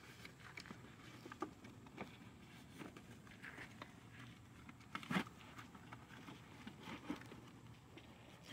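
Handling noise from unpacking an Ooni Fyra pizza oven: light taps, clicks and rustles as hands work the oven's metal body in its moulded pulp packaging tray, with one louder knock about five seconds in.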